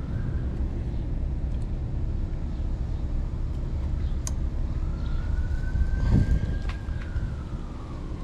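Distant emergency siren wailing slowly up and down over a steady low rumble of traffic, with a few sharp clicks and a brief louder swell of rumble about six seconds in.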